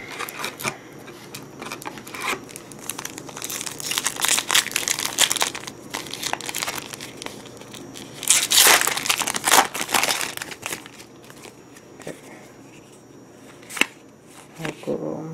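Foil booster pack wrapper crinkling as it is handled, then ripped open with a louder tear a little past halfway, followed by softer rustling.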